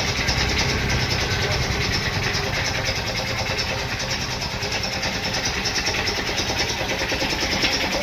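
A machine motor running steadily, with a fast even pulse and a hiss over a low hum.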